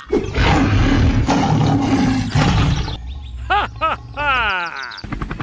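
Dinosaur roar sound effect: a long, rough, rumbling growl lasting about three seconds. It is followed by a quick run of squeaky calls that rise and fall in pitch.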